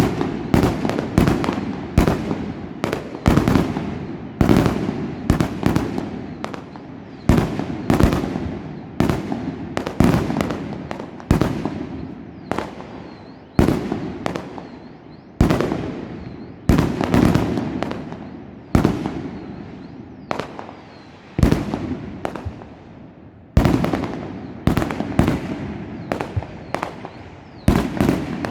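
Fireworks going off in quick, irregular succession: sharp bangs, often several a second, each trailing off in an echoing rumble.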